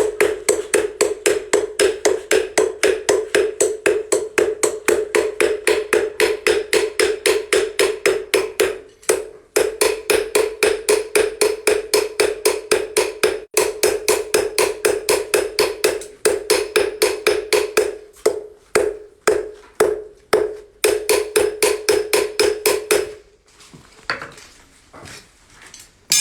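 Fast, even strokes of a hand tool on a metal object that rings with each stroke, about four to five a second. They break off briefly twice, turn uneven, then stop, leaving a few faint knocks.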